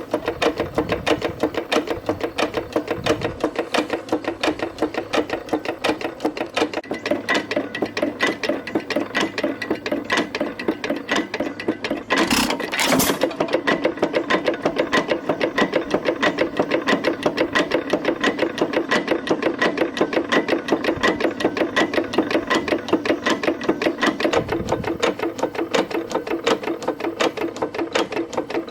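Detroit Engine Works 4.5 hit-and-miss engine running, its gears clanking, connecting rod knocking and piston pumping in a rapid, even rhythm. A louder blast about twelve seconds in, which may be the engine firing.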